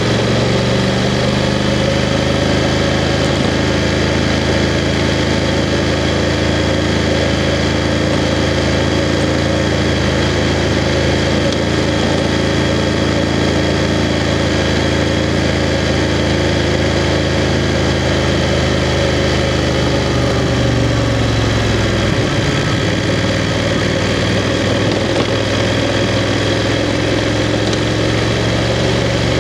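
BMW F 750 GS parallel-twin motorcycle engine running at low, fairly steady revs, heard from the rider's position. Its pitch shifts briefly about two-thirds of the way through, then settles again.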